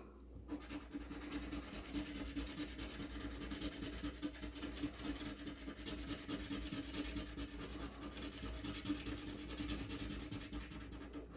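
Lottery scratch-off ticket being scratched off: continuous fast rasping of a scraper across the ticket's coating.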